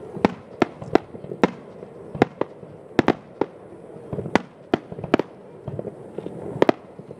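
Aerial fireworks shells bursting in quick succession: an irregular series of sharp bangs, about two a second, over a low rumble.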